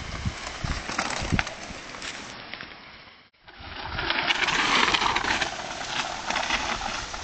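Mountain bikes coming down a dirt forest trail and passing close by: tyres rolling over the dirt with rattling and clicking from the bikes. The sound cuts out briefly a little past three seconds, then swells as a rider passes, loudest around five seconds in.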